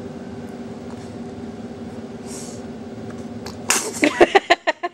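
A steady low electrical hum, like a running appliance. Near the end a sudden loud rustling burst comes, then a quick run of short voice sounds.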